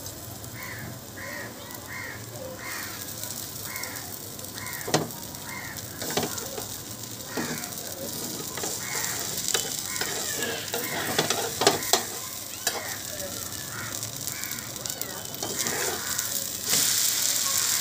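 Egg dosa sizzling on a hot iron tawa while a metal spatula spreads chutney over it, with repeated scraping strokes and a few sharp taps of the spatula on the pan. The sizzling gets louder near the end.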